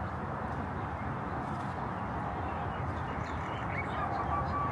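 Steady outdoor background noise, with a bird's short chirp and a high, steady, broken note starting near the end.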